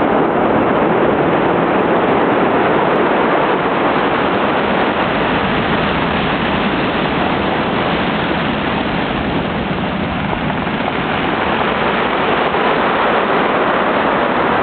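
Pacific Ocean surf breaking on a beach: a continuous loud rush of waves, easing slightly about ten seconds in before building again.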